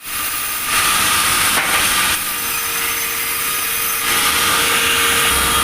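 Sawmill saw cutting through wood: a loud, high hissing whine that grows louder and softer as the cut goes on.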